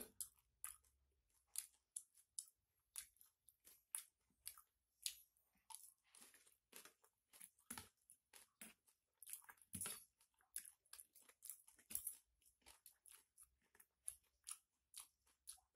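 Close-up mouth chewing and crunching of pecel with crunchy balado cassava chips: a steady run of short, irregular crunches and mouth clicks, faint overall.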